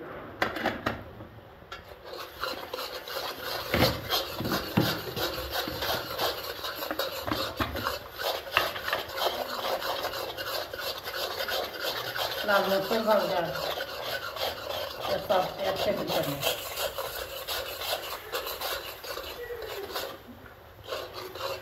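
Spatula scraping rapidly against a cooking pan while stirring, a dense run of rasping strokes.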